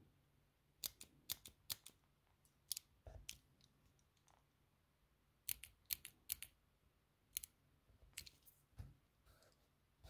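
Pentel Graphgear 1000 mechanical pencil's push-button end cap being clicked repeatedly to advance the lead, giving sharp metallic clicks in small quick groups. Two duller knocks come in among them, one about three seconds in and one near the end.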